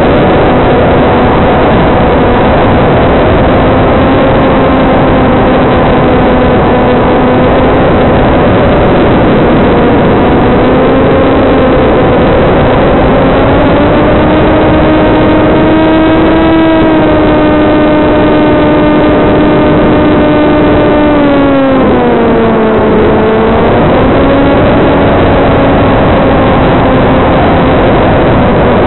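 Electric pusher motor and propeller of a TBS Caipirinha II flying wing in flight: a steady buzzing whine over rushing air. Its pitch climbs a little from about ten seconds in, holds, then dips sharply about twenty-two seconds in and comes back up as the throttle changes.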